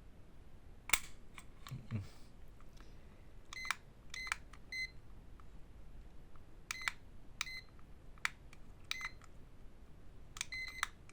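About eight short electronic beeps from a small digital scale as its buttons are pressed to zero and reset it, with a few sharp clicks about a second in.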